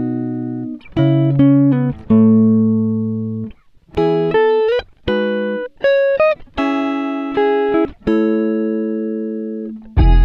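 Background music: a slow melody of single plucked-string notes, each held and fading before the next. Near the end a fuller part with a deep bass line comes in.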